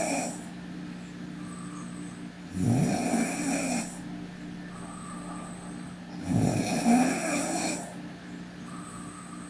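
A sleeping woman snoring: the end of one snore at the very start, then two full snores about three and a half seconds apart, each lasting a little over a second, with quieter breathing between them.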